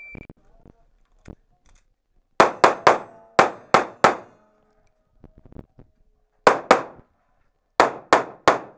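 Electronic shot-timer start beep, then pistol shots fired in quick strings of two to four, about a dozen in all, each echoing in an indoor range.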